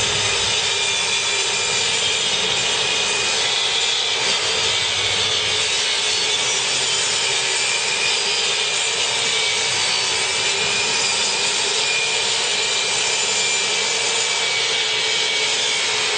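Power saw cutting plywood, running at a steady pitch and level.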